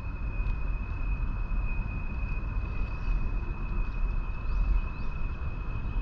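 Steady low outdoor rumble with a thin, steady high-pitched whine running through it.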